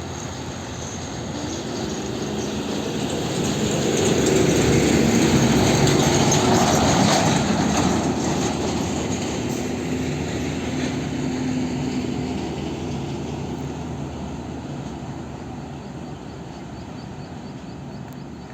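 A heavy diesel truck driving past, its engine drone and tyre noise swelling to the loudest point about five seconds in, then fading slowly as it moves away.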